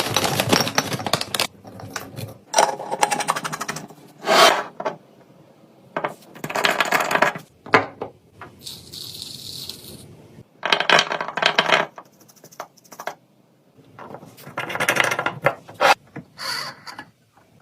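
Clattering and clinking of food containers and packages being handled and set down, in a string of short separate bursts, with a brief hiss about nine seconds in.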